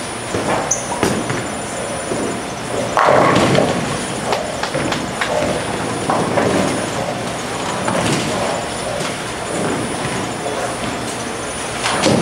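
Bowling ball rolling down a wooden lane and crashing into the pins about three seconds in. Further pin clatter and ball rumble from other lanes and voices come and go through a busy bowling alley's steady din.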